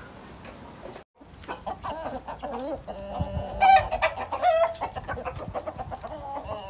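Local chickens clucking, with louder rooster calls near the middle that sound like crowing. The sound drops out briefly about a second in.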